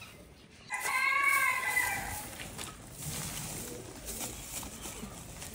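One wavering animal call, about a second and a half long, starting about a second in; it is the loudest sound here. Under and after it comes a faint rustle of soil and straw being spread by hand.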